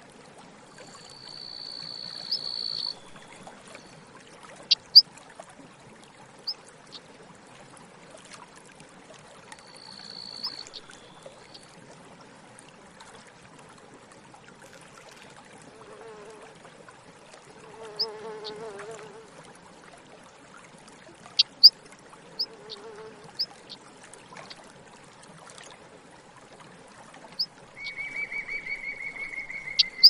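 Countryside ambience of short, sharp, high bird chips heard singly and in small runs, with a few high buzzy trills of insects. A fly buzzes past the microphone about two-thirds of the way through.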